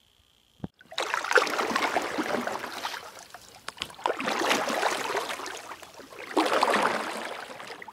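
Water rushing and splashing in three surges, starting about one, four and six seconds in, each fading away over a couple of seconds.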